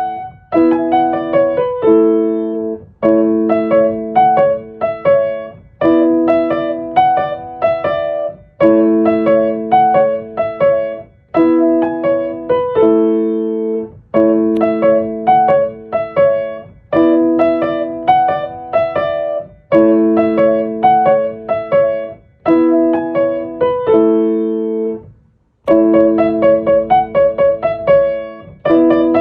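Solo piano music: phrases of struck chords and melody notes that ring and die away, with a short break about 25 seconds in.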